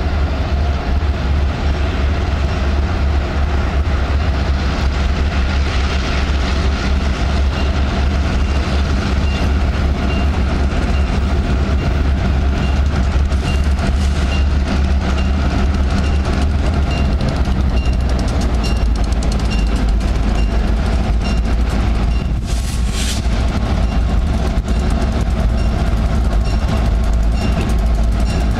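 EMD GP38-2 locomotive's two-stroke V16 diesel running with a steady low rumble as it leads a freight train slowly past. From about a third of the way in, a bell rings at a steady beat.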